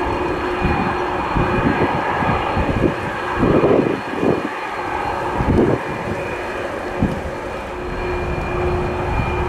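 Jet airliner engines running with a steady whine over a broad rush, while gusts of wind buffet the microphone, strongest about three and a half seconds in.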